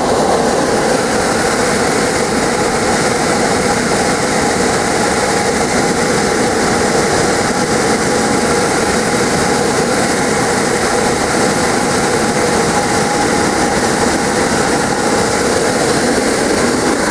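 Squirrel-cage blower fan from an old air handler, driven by a replacement 3/4 hp motor, running at full speed: a loud, even rush of air over a steady motor hum.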